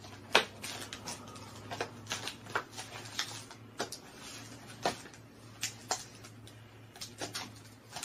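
Small cardboard boxes being handled and opened by hand: scattered clicks, taps and rustles of packaging, sharpest about half a second in, over a faint steady low hum.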